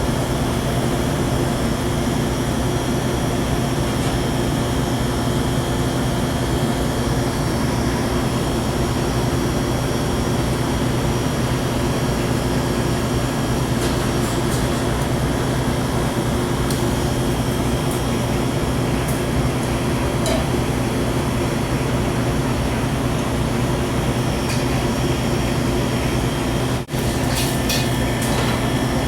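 Steady, loud machinery hum with several low tones, from commercial rooftop HVAC equipment running nearby. Near the end the sound drops out for an instant, followed by a few light clicks.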